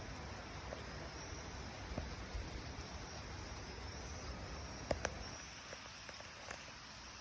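Steady outdoor background hiss with a faint, high wavering tone, and a couple of sharp clicks about five seconds in.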